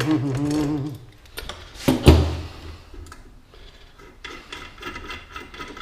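Bicycle parts and tools being handled on a workbench: one sharp knock about two seconds in, then light clicks and taps. A wavering hummed voice is heard in the first second.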